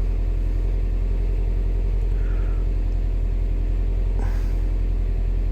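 2017 Subaru WRX STI's 2.5-litre turbocharged flat-four engine idling with a steady low rumble.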